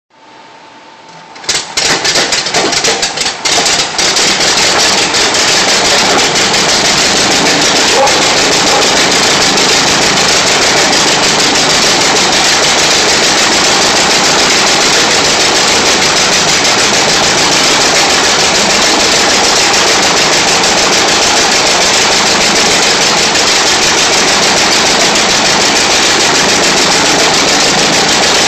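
Command-Aire biplane's small radial engine, hand-propped, catches about a second and a half in and sputters unevenly for a couple of seconds, then settles into steady, loud running with the wooden propeller turning.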